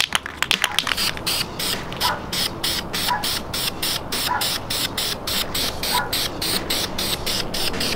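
Aerosol spray paint can hissing as it sprays, under background music with a quick, even beat.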